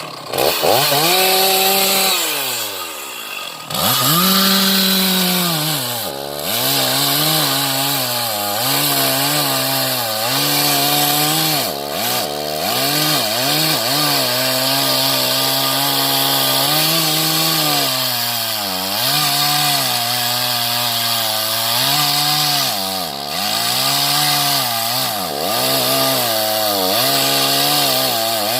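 Petrol chainsaw running at high revs and cutting into mahogany, its engine note dipping and recovering again and again as the chain bites. About two seconds in the revs fall briefly toward idle, then climb back up.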